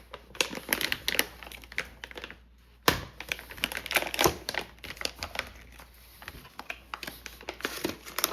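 Plastic packaging crinkling, with irregular light clicks and knocks, as spools of PLA filament are handled and unwrapped. After a brief lull there is one sharp knock just before three seconds in, the loudest sound.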